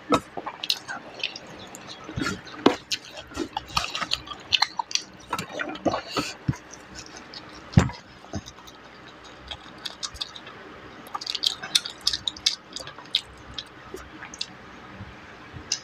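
Close-up eating sounds: fingers mixing and squishing rice with curry on a stainless steel plate, along with wet chewing and smacking. They come as a string of irregular short clicks and squelches, the loudest about eight seconds in.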